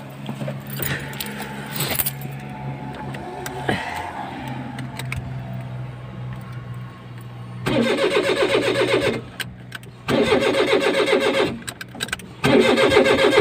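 Keys rattle in a Suzuki's ignition. Then the starter motor cranks the engine in three bursts of about one and a half to two seconds each, starting about eight seconds in, and the engine never catches: with the crankshaft sensor connector unplugged, the engine gets no crank signal and will not start.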